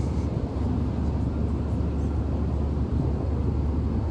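Steady low droning rumble of an airliner in flight, heard from inside the passenger cabin: engine and airflow noise.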